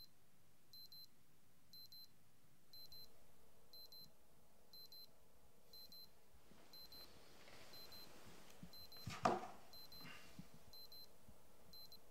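Electronic alarm clock beeping faintly, a quick group of high beeps about once a second. About nine seconds in there is a short louder burst of noise as the sleeper stirs under the duvet.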